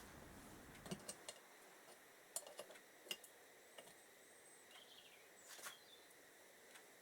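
Faint, scattered light clicks and taps of small carburettor parts being handled and fitted, a handful of separate ticks over otherwise quiet room tone.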